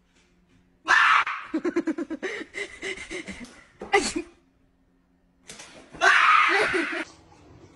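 A person's sudden loud yell, followed by a couple of seconds of laughter, then a second loud yell about six seconds in.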